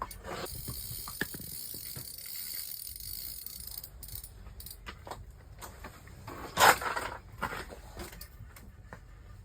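Fishing reel clicking and ratcheting during a fight with a hooked fish, with a high hiss over the first few seconds. A single loud, sudden sound cuts in about seven seconds in.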